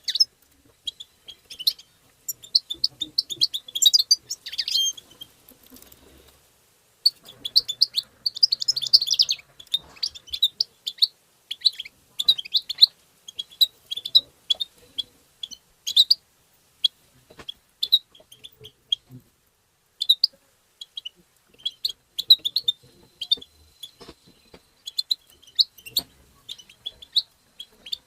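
European goldfinch twittering song: rapid runs of short, high chirps and trills in bursts, broken by brief pauses.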